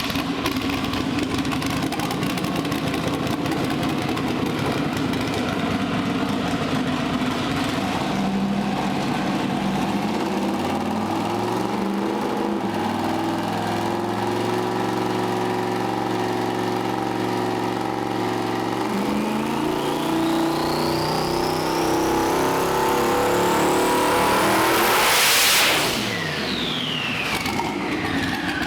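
Twin-turbo LS V8 in a Mustang making a pull on a hub dyno: the engine runs under load and rises in steps, then a turbo whine climbs steeply as it builds to full power. Near the end the throttle shuts and the turbos wind down with a falling whistle.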